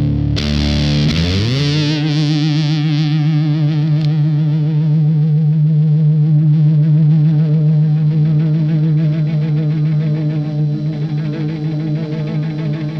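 Electric guitar played through a fuzz pedal: a note struck and slid up in pitch, then held as one long sustained note with vibrato, slowly fading.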